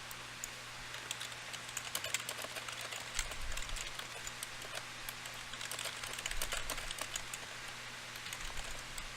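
Light, irregular clicking and tapping, several clicks a second, over a steady low hum.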